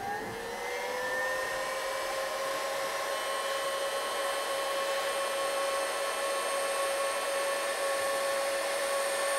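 Craftsman Professional heat gun running: a steady whine with a hiss of blown air, its pitch rising slightly as it comes up to speed in the first second or so. It is heating a turbocharger compressor wheel so the wheel will slide down onto the turbine shaft.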